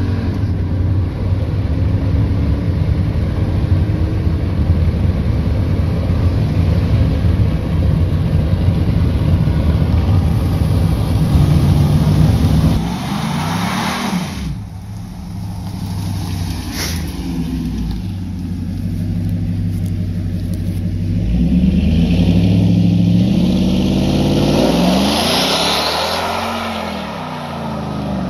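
A Ram pickup's 5.7 Hemi V8 pulling hard at full throttle, heard from inside the cab. About 13 s in it changes to a V8 pickup heard from the roadside, its engine note rising and falling as it passes, then revving hard as it pulls away with its tyres spinning.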